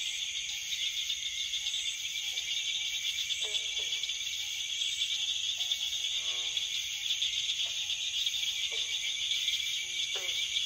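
Night chorus of insects, a steady high shrill trill, with frogs giving short falling calls every second or two, one of them a brief rattling run of notes near the middle.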